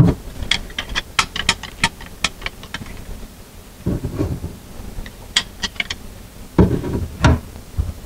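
Tongue-and-groove pliers clicking on the sink basket strainer's nut as it is snugged down: a quick run of sharp clicks, a pause, then four more clicks, with a few duller knocks in between.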